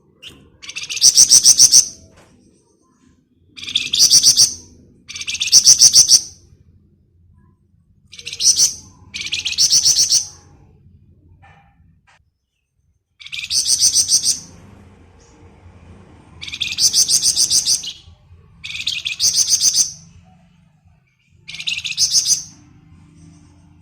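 A flamboyan songbird singing in rapid, rattling trills, the 'ngebren' song style. There are about nine separate bursts of fast-repeated high notes, each lasting a second or so, with short pauses between them.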